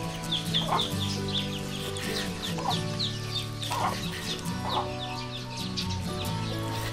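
Chickens clucking, with many quick high chirps, over background music of sustained low notes.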